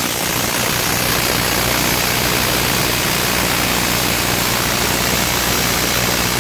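Makita 18-volt cordless impact wrench hammering nonstop at full power on a large, tight wheel nut, a loud steady rattle that never changes pitch. The nut does not come loose: the wrench can't break it free.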